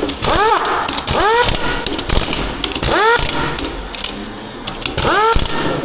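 Short squeals that rise and fall in pitch, four of them at uneven intervals, over the knocks and clatter of workshop work.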